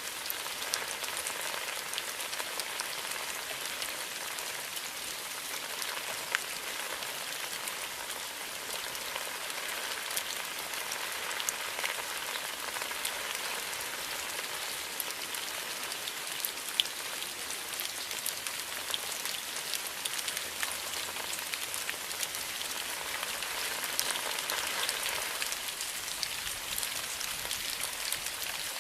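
Steady rain pattering on bamboo foliage, a continuous hiss with scattered sharper drop ticks that swells slightly near the end.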